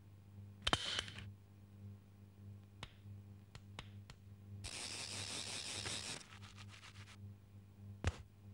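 Sparse cartoon sound effects for a hair being plucked from a nose: a sharp snap about a second in, a few faint ticks, then a hissing noise lasting about a second and a half, over a steady low hum.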